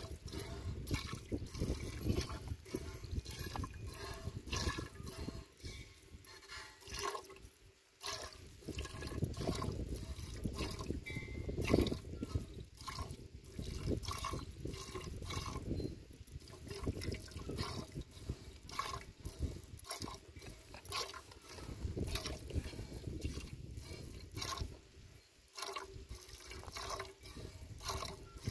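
A cow being milked by hand: a steady rhythm of squirts of milk, about two a second, as the teats are squeezed in turn.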